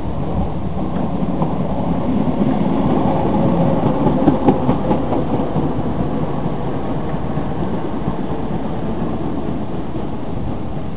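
Class 350 Desiro electric multiple unit running past, its wheels clicking over rail joints, loudest about four to five seconds in and then slowly fading.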